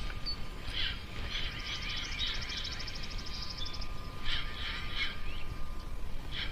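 Songbirds singing and chirping in short repeated phrases, with a fast trill about two seconds in, over a low outdoor rumble.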